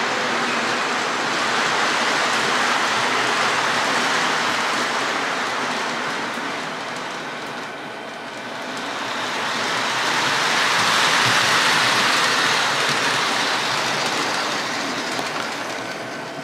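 O-gauge model trains running on three-rail track: a steady rushing rumble of wheels and motors that swells, dips about halfway, swells again and fades near the end.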